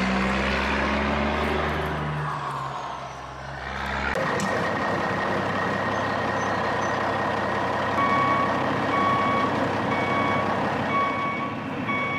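Heavy wheel loader's diesel engine sound, revving for the first few seconds and then running steadily. From about eight seconds in, a reversing alarm beeps about once a second as the loader backs away.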